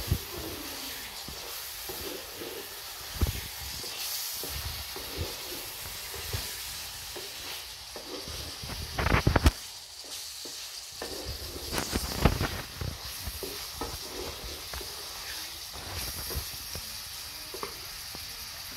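Goat liver sizzling in a tomato sauce in a metal saucepan while it is stirred, the utensil scraping and knocking against the pot now and then. The loudest scraping comes about nine seconds in and again around twelve seconds.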